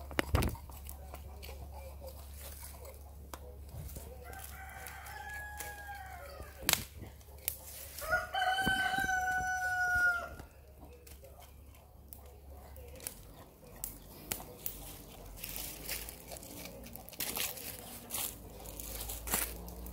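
A rooster crowing twice, the second crow louder and longer, with sharp clicks and knocks scattered around it.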